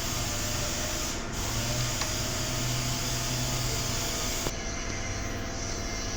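Steady low mechanical hum with an even hiss, without any distinct knock or click; the hiss thins about four and a half seconds in.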